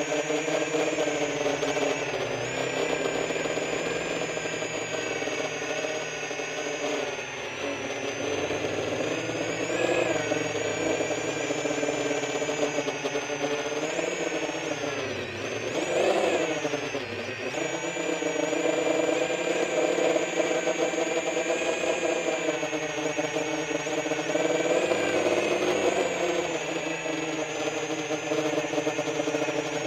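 FPV quadcopter's brushless motors and 10-inch propellers whining, heard from on board, the pitch rising and falling with the throttle. About halfway through the pitch drops away and then swoops sharply back up as the drone dives low and climbs out.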